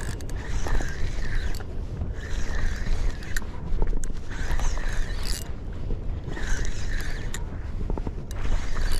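Spinning reel being cranked to wind in a small fish that is still fighting. The reel whirs in repeated spells about every second and a half, with small clicks, over a steady low wind rumble on the microphone.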